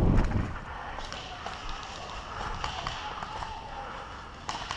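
Running footsteps through dry leaf litter that stop about half a second in, then scattered light clicks and faint distant voices.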